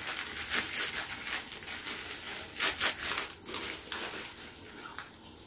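Plastic courier mailer bag crinkling and rustling as it is handled and opened, in irregular bursts that are loudest about two and a half seconds in and fade toward the end.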